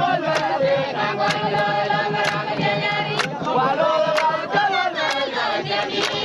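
Group of voices singing a chant together, with a sharp percussive beat struck evenly about once a second.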